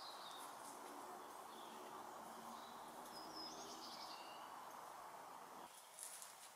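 Quiet countryside ambience: a faint steady hiss with a few soft bird chirps, and a few light footfall-like clicks near the end.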